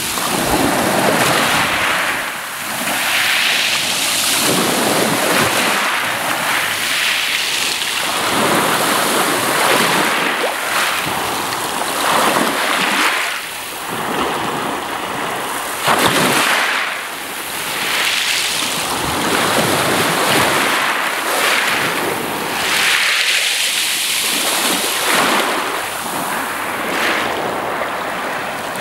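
Shallow waves surging up and washing back over a beach of small rounded pebbles, with a hissing wash that swells and fades every few seconds.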